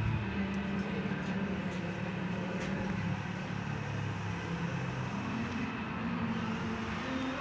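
A motor or engine running steadily with a low hum that shifts slightly in pitch about two-thirds of the way through, with a few faint ticks.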